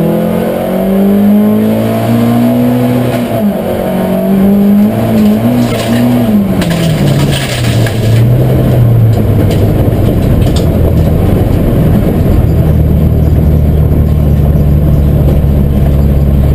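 Rallycross Ford Sierra's engine heard from inside the cabin. Over the first half the revs rise and fall, then drop away about six seconds in, with a rushing noise from about five to eight seconds in. From about ten seconds in the engine settles into a steady, low running note.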